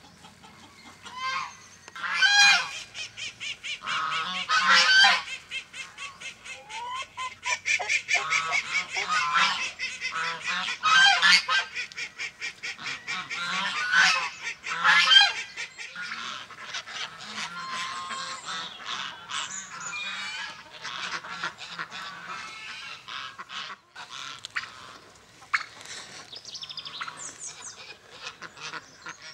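Farmyard waterfowl, geese and ducks, honking and calling over hens in a poultry yard. Loud honks come every few seconds, then give way to a dense, rapid chatter of short calls.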